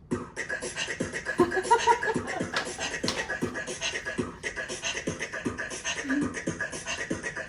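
Beatbox routine played by the Bixby voice assistant from a Samsung Family Hub refrigerator's speaker: a fast, steady rhythm of vocal kick-drum thumps, clicks and hissing hi-hat sounds.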